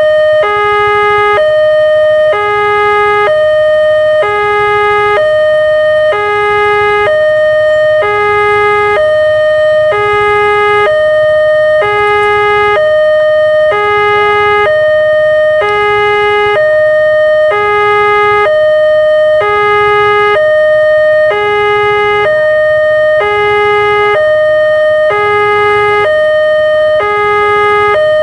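Railway level-crossing warning alarm sounding its two-tone signal: a higher and a lower tone alternate steadily, each held just under a second. It warns that a train is approaching and the barriers are down.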